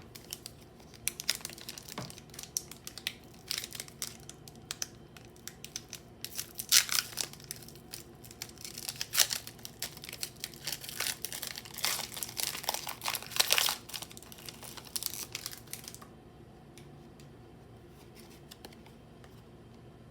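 Plastic packaging on a Pokémon trading card box crinkling and tearing in a rapid, irregular run of crackles, with louder rips about 7 and 13 seconds in. The crackling stops about 16 seconds in.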